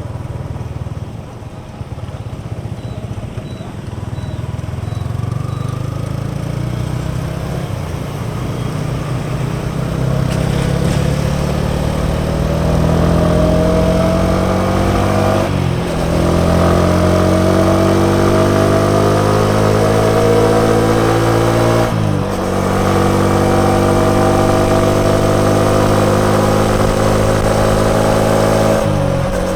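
Yamaha XSR 155's single-cylinder engine accelerating through the gears: engine pitch climbs steadily, with three upshifts, each a brief dip in sound followed by a lower pitch that climbs again. The first several seconds are quieter, at lower revs.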